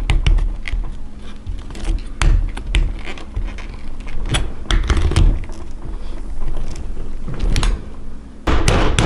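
Heated steel knife blade scraping and clicking against a baitcasting reel, irregular sharp taps over a low rumble. Near the end it turns abruptly into quick, repeated chopping blows of the blade on the reel.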